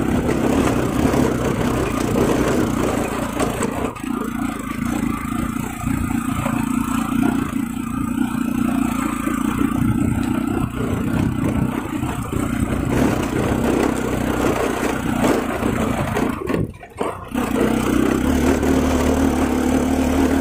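Motorcycle engine running steadily while the bike rides over a rough stone and dirt track. About three-quarters of the way through, the sound drops sharply for under a second, then comes back.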